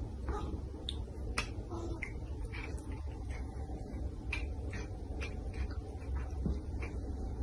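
Faint, irregular light clicks and ticks, about one or two a second, over a steady low hum.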